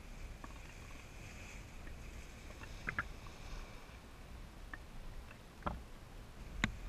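Small waves lapping and splashing against a GoPro sitting at the water surface, heard through its housing as a steady low rumble. A few sharp splash ticks come through it, twice close together about three seconds in, and the loudest near the end.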